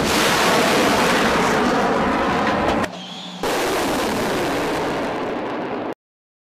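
Loud, dense rumbling noise with a brief drop about three seconds in, cutting off abruptly near the end.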